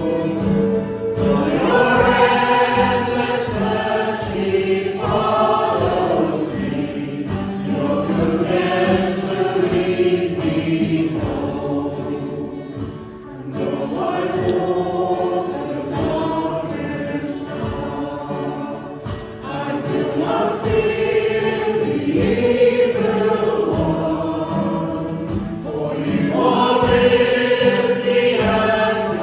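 A church congregation singing a hymn together, with a steady instrumental accompaniment holding a low note beneath the voices.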